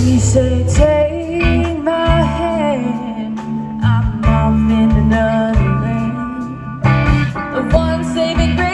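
Live blues band playing a slow blues: a woman singing over electric guitar, keyboard, bass and drums.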